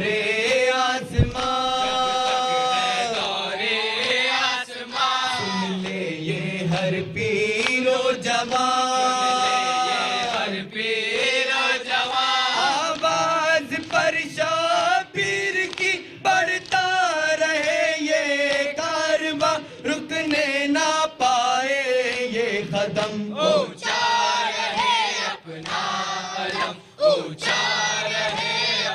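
A group of young male voices chanting a noha, a Shia lament in Urdu, sung into microphones: two lead singers carry the lines and the rest join in unison. The chant runs in long held phrases with short breaks between them.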